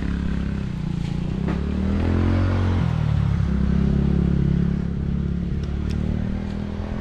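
Vehicle engine accelerating: its pitch climbs, drops sharply at a gear change about three seconds in, then the engine runs on steadily.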